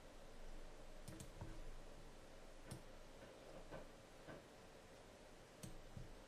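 A few faint, scattered clicks from a computer mouse and keyboard, two in quick succession about a second in and single ones later, over near-silent room tone.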